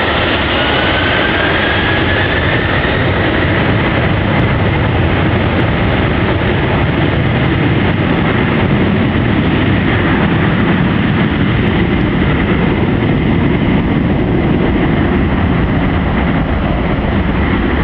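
McDonnell Douglas MD-11's three General Electric CF6 turbofan engines at takeoff thrust: a loud, steady roar with a faint high whine that rises over the first few seconds and then holds.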